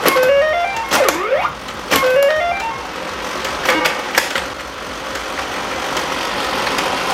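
Tomy Astro Shooter tabletop pinball in play: electronic sound effects of rising stepped beeps and swooping tones, twice each, over sharp plastic clicks of the flippers and bumpers. From about four and a half seconds in, a steady buzzing sound takes over.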